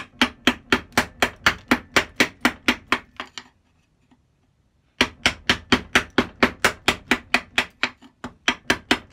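Chisel being tapped with a mallet to chop waste out of a channel in oak: light, even knocks about four a second. The knocks stop for over a second around the middle, then another run follows.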